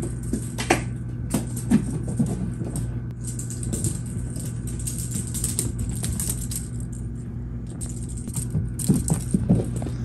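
Steady low hum with scattered light clicks and rustling from a handheld phone camera being carried along, the clicks clustered twice, about a second in and again near the end.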